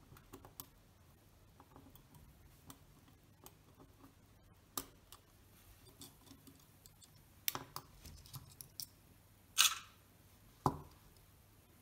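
Faint small metallic clicks and ticks of steel tweezers working a spring and small parts on a Synchro-Compur leaf shutter, with a few sharper clicks in the second half.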